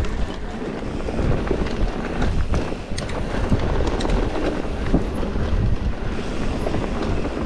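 Wind buffeting an action camera's microphone as a mountain bike rides fast down a dirt forest trail, with a steady low rumble of tyres over the ground. A few sharp knocks and clicks from the bike break through, several of them about halfway through.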